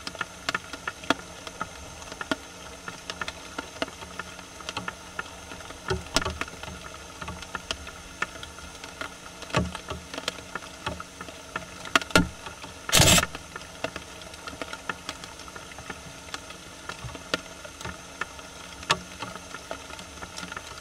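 Japanese raccoon dogs foraging close by in dry leaf litter: scattered irregular clicks and rustles, with one louder scrape about thirteen seconds in, over a steady hiss.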